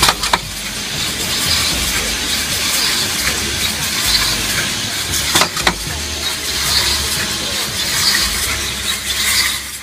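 Dry ice blasting machine running: a steady rush of compressed air over a low rumble, with a sharp click just after the start and another knock about five and a half seconds in.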